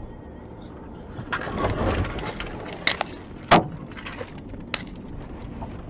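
Car crash heard from inside a following car over steady road noise. A crunching rush starts about a second in, then come three sharp knocks, the loudest about three and a half seconds in.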